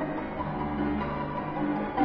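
Violin playing held notes over a sustained low accompaniment.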